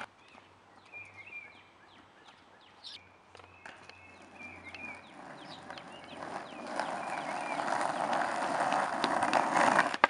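Birds chirping in short, repeated calls over a quiet yard. From about six seconds in, skateboard wheels rolling over asphalt come in and grow steadily louder.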